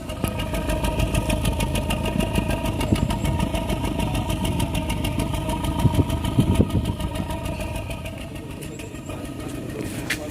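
Toyota 4A-FE 1.6-litre inline-four engine running and being revved up, easing back toward idle about eight seconds in. The engine has a misfire traced to the number 2 cylinder.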